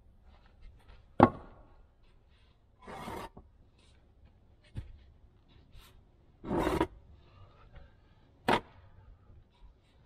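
Hollow concrete cinder blocks being set down and stacked on each other: two sharp knocks and two short gritty scrapes of concrete on concrete and wood.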